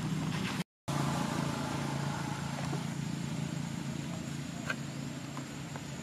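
Steady low engine hum, like a motor vehicle running, over faint outdoor background noise; the sound drops out completely for a moment about a second in.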